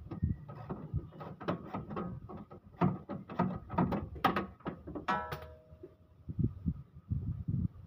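Plastic timing belt cover on a 2L engine rattling and knocking as it is handled and worked loose, with many quick clicks and knocks. A brief ringing tone sounds about five seconds in.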